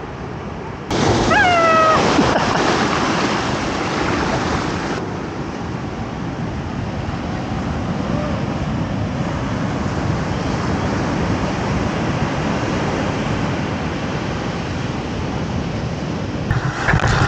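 Waves and surf washing on a beach, a steady rushing noise. About a second in, a short falling cry sounds over it.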